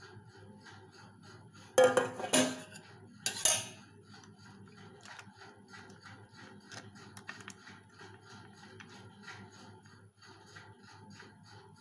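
A stainless-steel bowl clattering twice, about two and three and a half seconds in. Faint, even ticking at about three ticks a second runs underneath.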